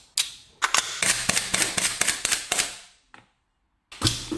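Toy P320 M18 pistol: a click, then a rapid string of sharp shots, about six a second for about two seconds. Near the end a short clatter as the pistol is dropped into a plastic bin.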